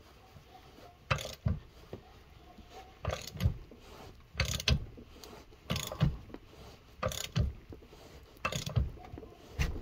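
Short metallic clicks and clinks, mostly in pairs about every second and a half, as washers and a lug nut are worked onto a new wheel stud in the axle shaft flange.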